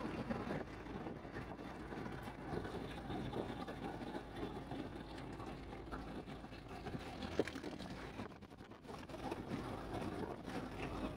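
Steady engine and road noise of a moving vehicle heard from inside the cabin, dipping briefly about eight seconds in.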